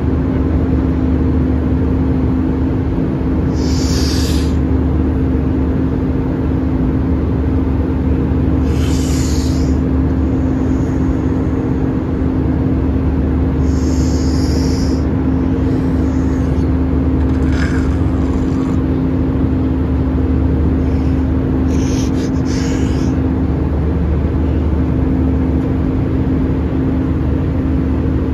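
Airliner cabin noise at cruise: a steady drone of engines and rushing air with a constant low hum. Brief soft rustles break in every few seconds.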